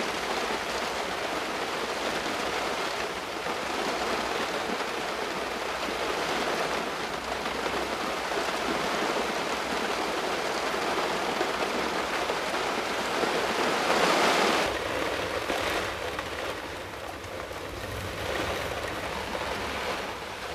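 Heavy rain beating on an aircraft's windscreen, heard from inside the cockpit as a steady hiss that swells briefly about two-thirds of the way through.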